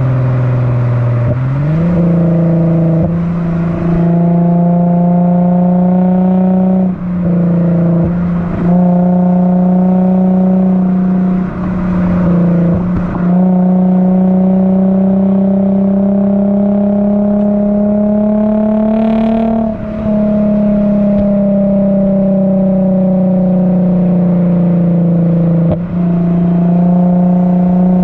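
Lexus IS350's 3.5-litre V6 through an HKS Hi Power cat-back exhaust and Invidia mid-pipe, heard right at the muffler tip while driving: a steady exhaust drone. Its pitch steps up about a second and a half in, then holds, drifting slowly up and down, with brief dips several times.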